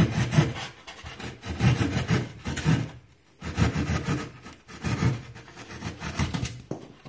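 Hand saw cutting through rigid foam insulation board with back-and-forth strokes, about two a second, pausing briefly about three seconds in and stopping just before the end.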